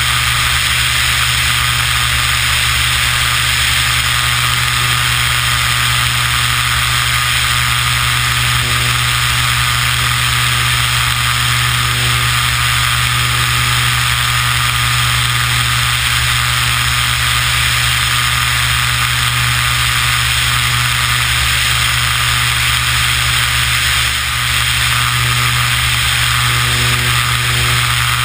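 Beechcraft Debonair's single piston engine and propeller droning steadily in flight, mixed with loud wind rush over a camera mounted under the wing.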